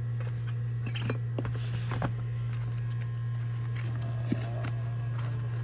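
Plastic storage bins and bagged plastic sheets being handled: a few light clicks and rustles, the sharpest a little past the middle, over a steady low hum.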